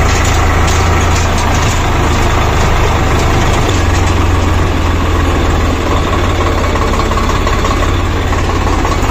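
Farm tractor's diesel engine running steadily, heard from the driver's seat with a deep, even engine note as the tractor drives along a dirt track.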